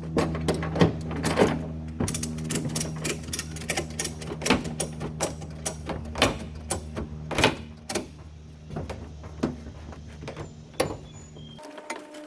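A ratchet strap being cranked tight to tie down a trailer load: a run of sharp, irregular ratchet clicks. A steady low hum runs underneath and stops near the end.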